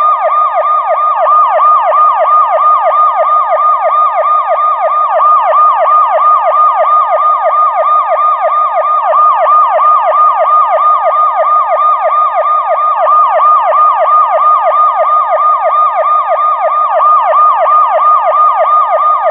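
Police car siren wailing in a fast repeating sweep, about four rises a second, steady and unbroken.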